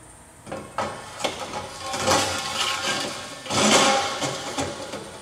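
A straight metal mirror-bar extension being slid into the mirror bar's square tube: a few knocks, then two scraping rasps of metal on metal, the second the loudest.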